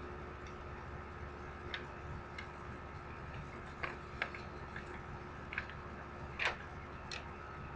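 About seven small, irregularly spaced clicks, the loudest about six and a half seconds in, over a steady low hum with a faint steady high tone.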